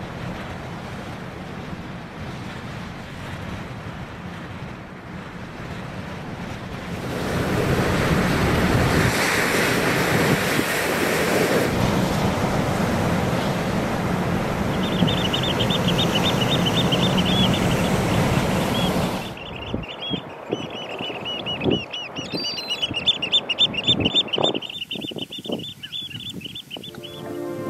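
Steady sea surf and wind noise that grows louder about a quarter of the way in, then cuts off about two-thirds through. Past the halfway point a small bird gives a rapid, high-pitched trill of many quick notes, repeated, with scattered sharp clicks near the end.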